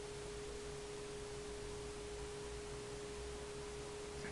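Quiet room tone: a faint steady hum held at one pitch over low hiss, with no distinct handling sounds.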